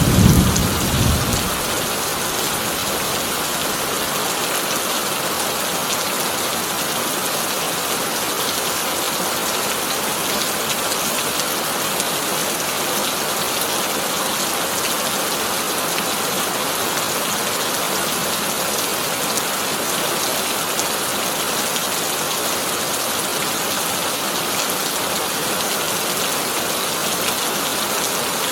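Heavy rain falling steadily on a tin roof. A thunder rumble dies away in the first second or two.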